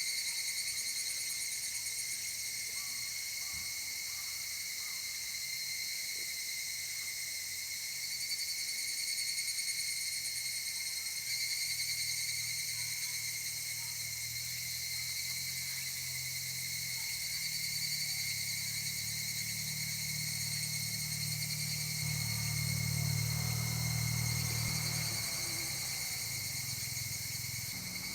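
Steady high-pitched drone of summer insects calling without a break. A low hum swells up in the second half and fades out again.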